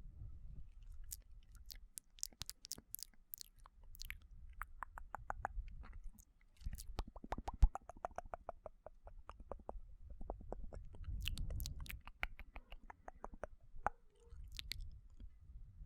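ASMR mouth sounds: quick runs of short wet clicks and smacks from lips and tongue, with one sharp louder click a little past halfway.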